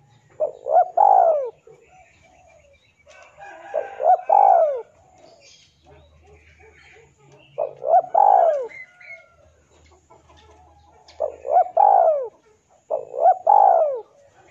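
Male spotted dove cooing: five short phrases of a few notes each, about three to four seconds apart, the last two closer together. It is the male's call to a rival.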